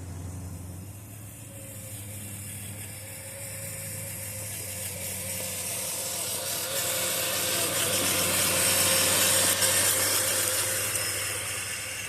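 Traxxas TRX4 RC crawler's electric motor and drivetrain gears whining under load, growing louder toward the middle and easing off near the end.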